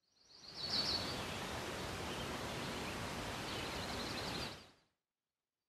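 Nature-ambience sound bed for a logo sting: short, high bird chirps over a steady rustling hiss, fading in and cutting off after about four and a half seconds.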